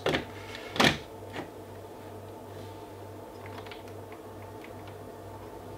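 Two sharp clicks within the first second and a few fainter ticks later, from hands switching on the function generator's output and plugging leads into bench test equipment, over a steady low electrical hum.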